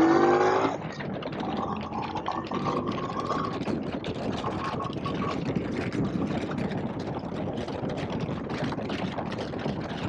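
Indian Scout Bobber's V-twin engine pulling hard as the motorcycle accelerates, its pitch rising until it eases off about a second in. After that there is a steady rush of wind on the microphone at cruising speed, with the engine running underneath.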